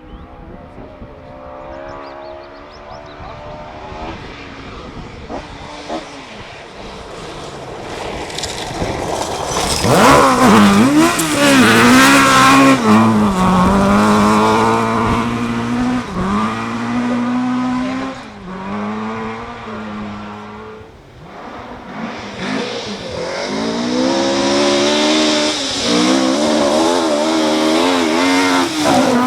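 Ford Escort Mk1/Mk2 rally car engines at full throttle, revving up and falling back through gear changes. Quieter at first, then much louder about a third of the way in, with a short drop near two-thirds.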